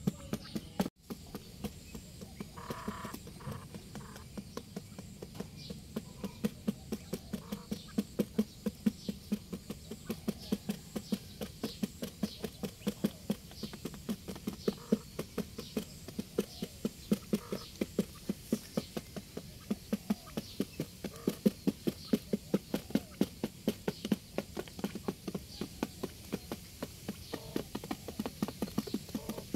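Quail pecking grain off a cardboard sheet: quick, irregular taps of beaks on cardboard, several a second.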